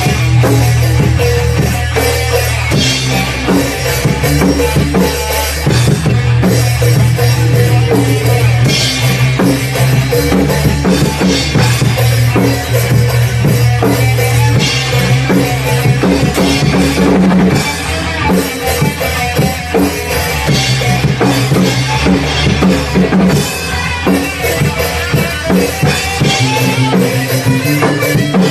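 Rock band playing live: drum kit, bass guitar and electric guitar, with steady bass notes under hard, frequent drum hits.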